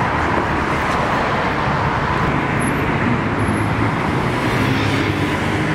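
Steady road traffic noise of a city street.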